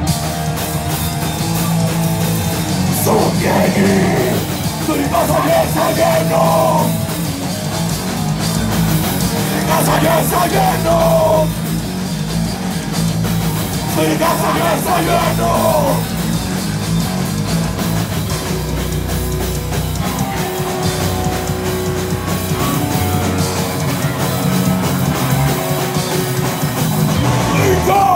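Live rock band playing loud: distorted electric guitars, bass guitar and drum kit, with a singer shouting vocal lines now and then through the first half, then mostly instrumental.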